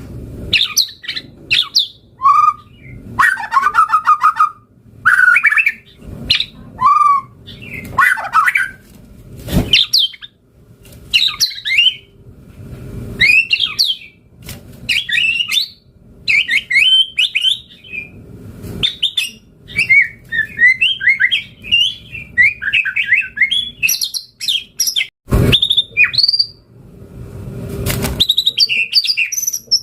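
White-rumped shama singing a long, varied run of quick whistled and chattering phrases, the full-repertoire song used as a masteran. Three loud, sharp knocks cut in, about ten seconds in and twice near the end.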